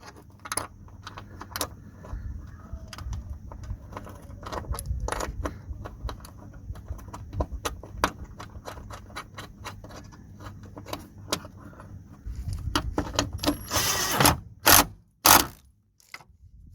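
Irregular light metallic clicks and clinks as a handbrake cable retaining clamp is handled and fitted under the car, with a louder scraping rattle about fourteen seconds in and a sharp knock just after it.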